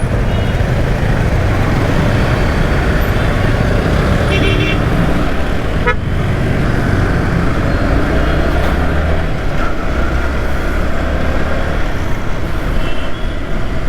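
Steady wind and road rush on a helmet-mounted camera while riding in traffic, with the low running of a Yamaha R15 V3's 155 cc single-cylinder engine underneath. A vehicle horn toots briefly about four and a half seconds in, and a single sharp click comes about six seconds in.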